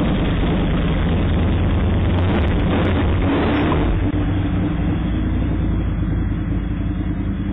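A motor vehicle engine running steadily and loudly, close to a security camera's microphone, under a rushing noise that eases a little about four seconds in.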